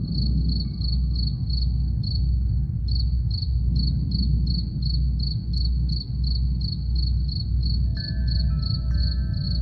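Crickets chirping steadily, about three chirps a second, over a deep low drum pulse about twice a second. Near the end, a few held, ringing wind-chime tones come in.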